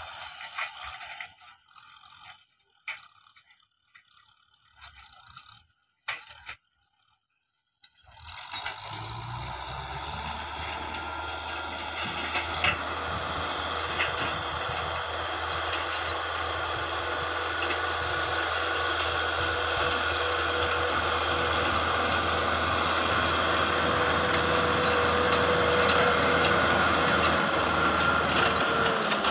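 Kubota M6040 tractor's four-cylinder diesel engine running steadily under load while pulling a disc harrow, growing gradually louder. It comes in about eight seconds in, after a stretch of faint, broken sounds and brief silences.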